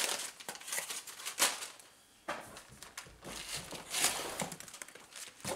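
Brown kraft packing paper crumpling and rustling in irregular bursts as it is pulled out of a cardboard shipping box.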